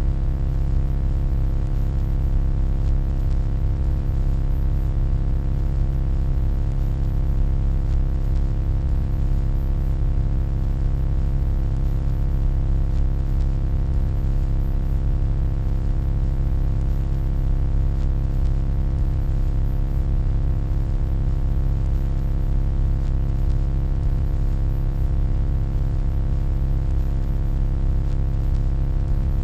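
Steady electronic hum: a low, even drone with many constant tones layered over a faint hiss, unchanging throughout.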